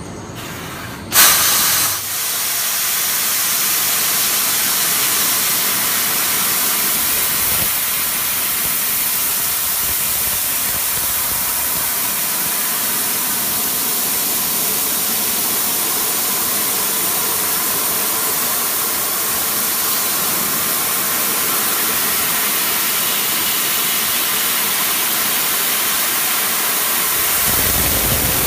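Fiber laser cutting machine cutting metal: the steady hiss of assist gas jetting from the cutting head, switching on suddenly about a second in.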